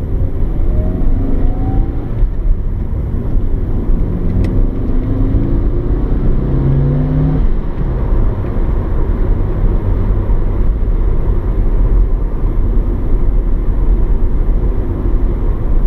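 Interior sound of a 2000 Mitsubishi Lancer Evolution 6.5 TME's turbocharged 2.0-litre 4G63 inline-four accelerating through the gears: the engine note rises twice, over the first couple of seconds and again from about four to seven seconds, then settles into a steady cruise with low road rumble.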